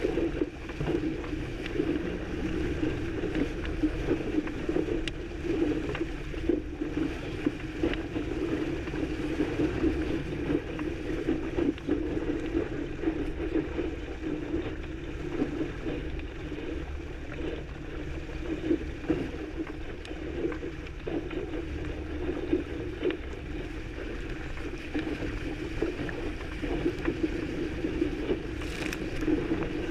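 Steady rush and hiss of water streaming along the hull and wake of a small sloop sailing fast.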